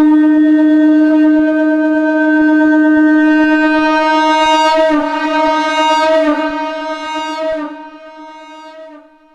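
Shankh (conch shell) sounding one long, steady note pitched at D#, with a stack of overtones; about five seconds in the tone turns wavery and rough before it fades out near the end.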